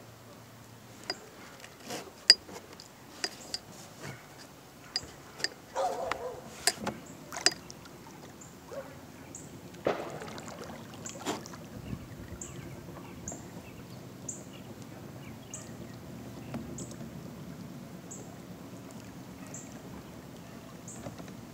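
Electric trolling motor driving a plastic kayak, with a steady low hum that grows stronger from about ten seconds in. In the first several seconds there is a string of sharp knocks and clacks against the hull. A faint high chirp repeats about once a second throughout.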